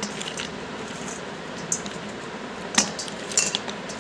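Hard pieces of edible clay clinking against a steel colander and a glass bowl as they are picked out and dropped in: a few short sharp clicks, the loudest and a quick pair in the second half, over a steady hiss.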